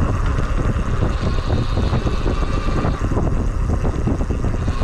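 Wind buffeting the microphone over tyre and road noise as a RadRunner e-bike is ridden, with a thin high whine that fades in and out.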